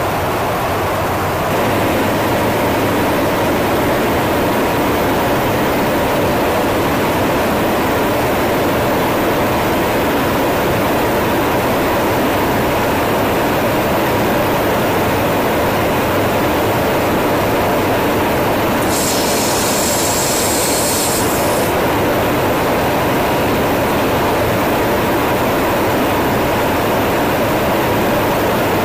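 Steady in-flight jet noise from a KC-135 tanker, an even rush of engine drone and airflow, with a brief sharper hiss for about three seconds about two-thirds of the way through.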